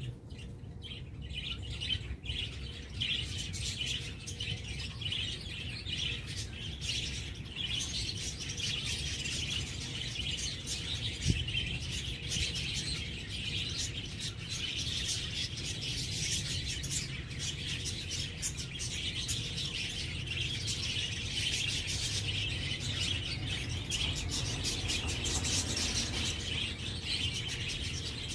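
Birds chirping continuously, many short chirps overlapping, over a steady low rumble.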